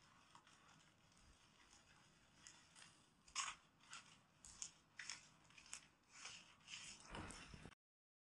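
Soft crisp scraping and clicking strokes of a dental composite instrument pressing and shaping composite resin on a model tooth, about one every half second, the loudest about three and a half seconds in. The sound cuts off abruptly near the end.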